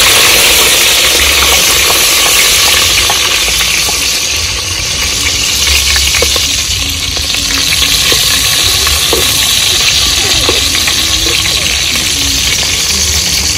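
Food frying in hot oil in a pan: a loud, steady sizzle.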